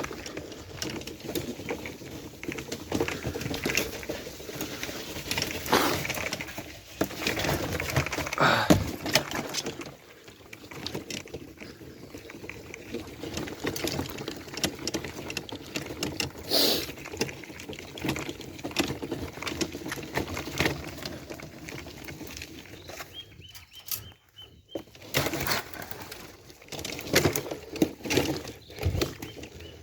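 Footsteps, rustling and scattered knocks of feed being carried across a farmyard, with birds calling now and then.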